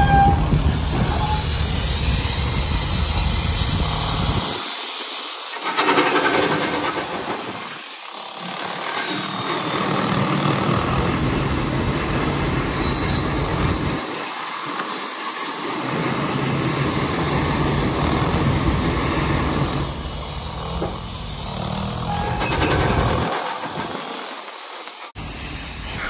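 Steam shovel working: a steady hiss of steam over a rumble that comes and goes.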